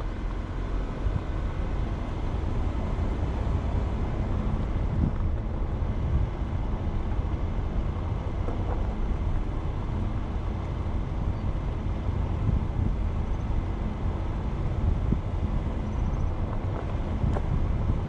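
A car driving along a paved road: a steady low rumble of engine and tyres, with wind buffeting the microphone.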